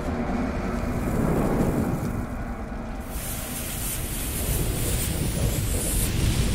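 Logo-intro sound effect of a burning fuse and fire: a steady low rumble under a hissing crackle that grows brighter about three seconds in.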